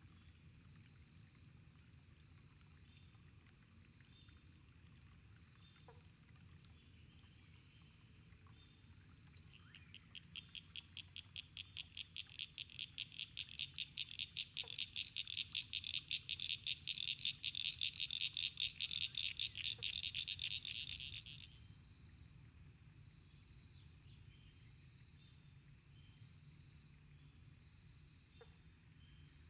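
A frog calling: a long, rapid, high-pitched pulsed trill that begins about a third of the way in, swells for about ten seconds and stops abruptly. Fainter, scattered calls of the same pitch are heard around it.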